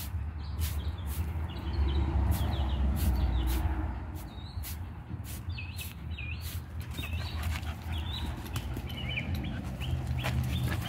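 Stiff broom bristles scraping and flicking across stone pavers, with small birds chirping in the background from about halfway through, over a steady low rumble.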